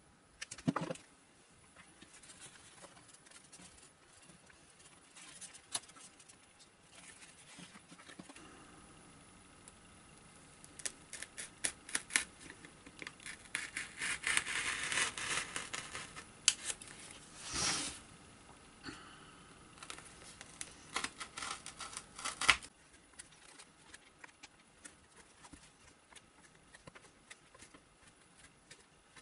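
Hands working a small RC servo and its wires into a foam model-plane fuselage: scattered clicks and taps, with foam rubbing and scratching that gets busier in the middle, and a few sharper knocks.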